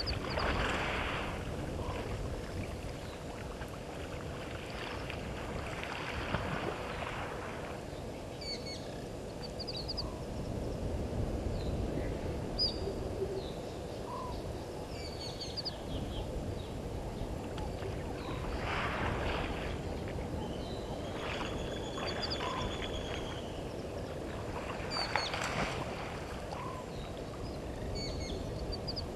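Water splashing in four bursts several seconds apart, with small birds chirping faintly throughout.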